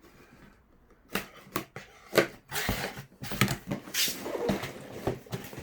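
Large cardboard Lego set box being opened by hand: a few sharp knocks and taps, the loudest about two seconds in, then irregular rubbing and sliding of cardboard as the flaps and inner boxes are handled.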